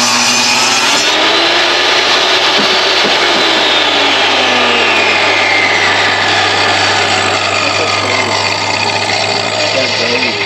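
DeWalt jobsite table saw finishing a rip cut through a long weathered wooden board about a second in, then running on with its whine slowly falling in pitch as it winds down.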